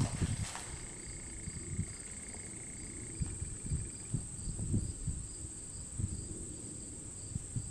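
Crickets chirping steadily in an even, pulsing rhythm, with irregular soft low thumps and a faint steady tone over the first few seconds.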